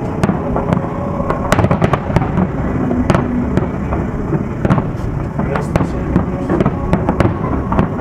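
Display fireworks: aerial shells bursting one after another, sharp bangs at irregular intervals over a continuous low rumble.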